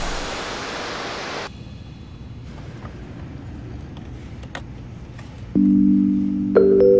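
A steady hiss that cuts off suddenly about a second and a half in, then a few faint clicks as the plastic cab door of a toy fire truck is opened by hand. Near the end, marimba-like music notes start.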